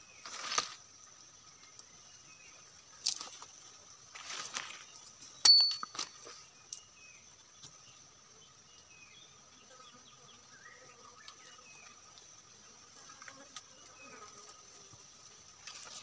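Dry leaves rustling and thin bamboo sticks clicking and scraping against soil as a stick snare trap is set by hand. There are a few short rustles and clicks in the first seven seconds; the loudest is a sharp snap about five and a half seconds in. A steady high insect drone runs underneath.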